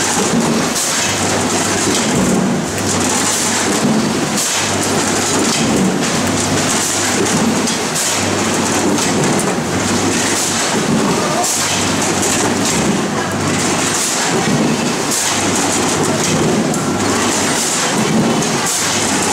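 Red potatoes tumbling off a conveyor and rattling over the stainless-steel hopper and chutes of a running Newtec 4014XB1 weighing machine: a dense, steady clatter over machine noise. A low hum cuts in and out every second or so.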